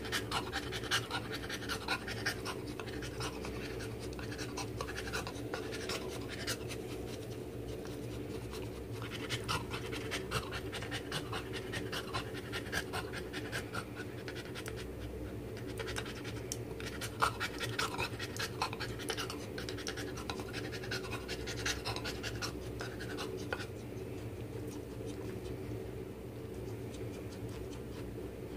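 Cocker spaniel licking and smacking its mouth, a dense run of quick wet clicks that dies down near the end, over a steady low hum.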